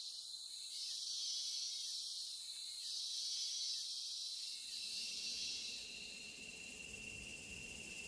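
Rainforest insect chorus: a dense high buzzing that swells and eases in waves. About five seconds in it gives way to a steady, single-pitched high trill.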